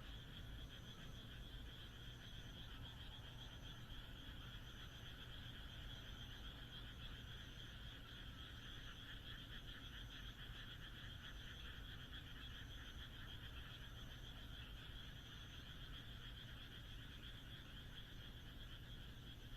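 Night chorus of many frogs calling at once, a dense, unbroken pulsing trill. A faint high chirp repeats evenly a little under once a second.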